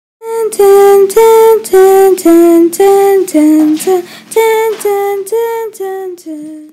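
A woman's voice singing a slow, wordless tune in short, separate notes, about two or three a second, growing softer toward the end.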